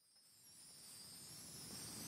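Background music fading in from silence, faint at first and growing steadily louder.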